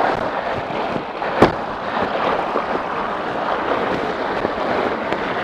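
Steady rush of water in a mountain stream, with a single sharp click about a second and a half in.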